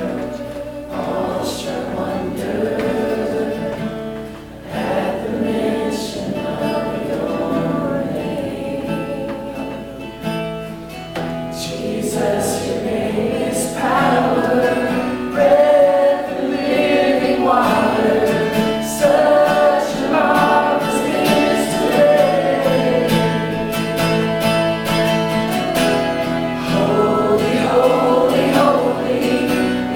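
A congregation and worship band singing a gospel hymn with guitar accompaniment.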